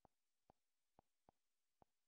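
Five faint, short clicks about half a second apart: the Android TV box's menu navigation sound as the selection steps through the app grid.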